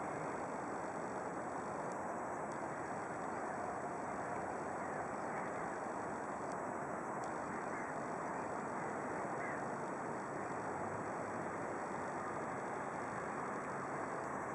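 Steady distant outdoor rumble of traffic and port activity, with a couple of faint bird calls partway through.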